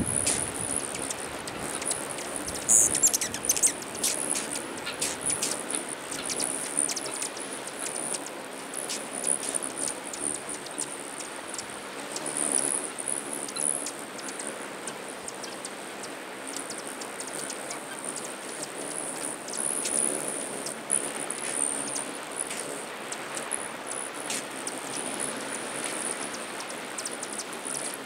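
Rufous hummingbirds at feeders: many short, high chips and twitters over a steady high-pitched buzz that swells and fades, with a louder burst of squeaky chatter about three seconds in.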